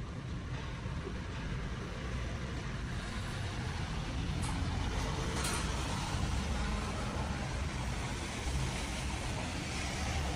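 Steady low rumble of passing street traffic, with two short clicks about four and a half and five and a half seconds in.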